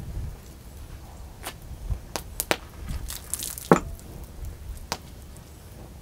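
Wood fire crackling, with about six sharp, separate pops from the burning logs, the loudest a little past the middle.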